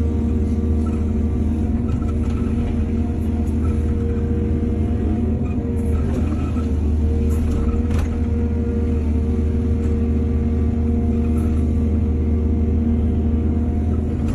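Heavy construction machine's diesel engine running steadily, with a few faint knocks about six and eight seconds in.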